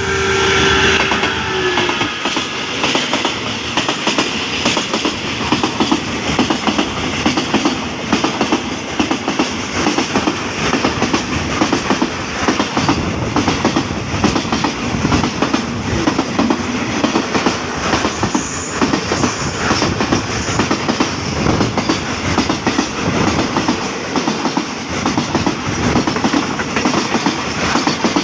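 Freight train rolling past close by, its wagon wheels clattering rhythmically over the rail joints in a steady, loud clickety-clack. It is loudest about a second in.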